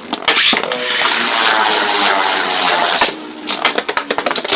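Two Beyblade Burst spinning tops, Vise Leopard and Revive Phoenix, battling in a plastic stadium: a loud, steady grinding rasp for about three seconds as they spin against each other, then a rapid run of sharp clacks as they collide.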